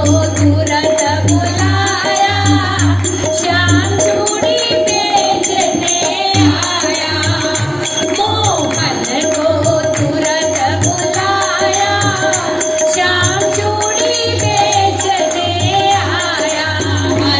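Devotional bhajan sung by a woman through a microphone and PA, over a repeating low beat, with a group of women clapping along.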